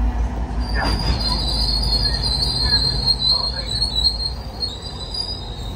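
Train wheels squealing against the rails: a steady high-pitched squeal that starts about half a second in, shifts slightly in pitch partway through and fades near the end, over the low rumble of the moving train.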